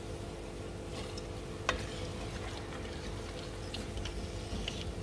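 Gulab jamun frying gently in oil, with scattered small crackles and ticks from the oil, as a metal slotted spoon lifts the fried balls out of the wok. A sharp click comes about one and a half seconds in.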